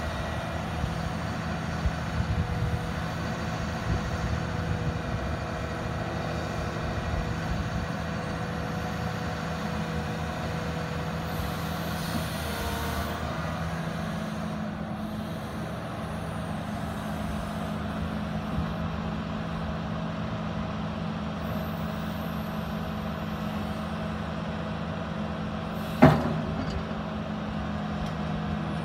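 Komatsu PC210LC-10 excavator's turbo-diesel engine running steadily while the hydraulics swing the machine and work the boom and bucket; the engine note shifts slightly about halfway through. A single sharp clank near the end.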